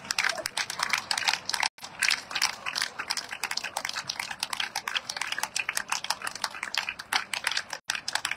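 Audience clapping: dense, continuous hand claps from the ringside spectators.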